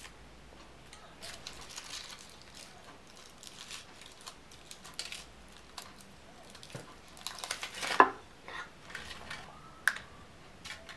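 Foil wrapper of a Kinder Surprise chocolate egg crinkling and crackling as small hands peel it off, with scattered small clicks. About eight seconds in comes a louder sharp crack as the chocolate shell is broken open to get at the toy capsule.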